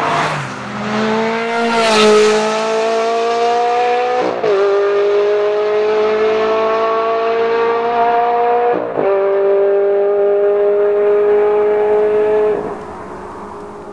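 Ferrari 360 Challenge Stradale's flat-plane V8 passing close about two seconds in, then accelerating hard away through the gears. The note climbs steadily and drops at upshifts about four and nine seconds in and again near the end, then fades into the distance.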